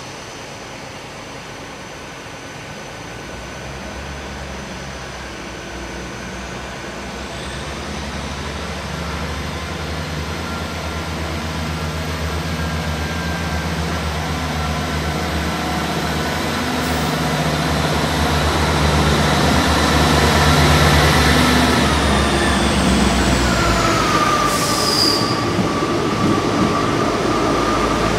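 Great Western Railway diesel multiple unit arriving along the platform, its engine rumble and wheel noise growing steadily louder as it draws alongside. High whines run over it, one falling in pitch near the end.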